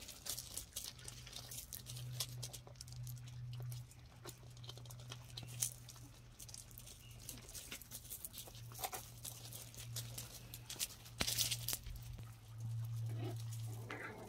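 Puppies' paws scrabbling and pattering on loose gravel, small stones crunching and scattering in quick, irregular clicks, the loudest crunch about eleven seconds in. A steady low hum runs underneath.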